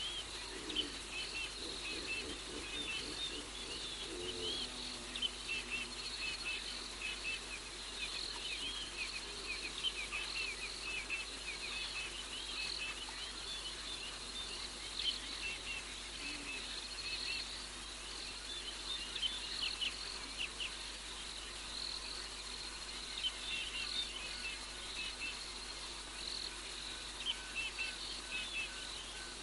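Night chorus of crickets and other insects: dense high chirping over a steady high trill.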